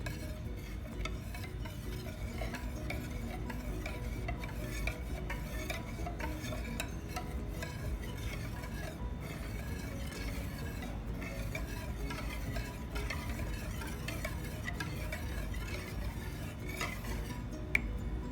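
A utensil stirring a batter of egg yolks and evaporated milk in a bowl, a continuous soft scraping with small clicks against the bowl and one sharper tap near the end.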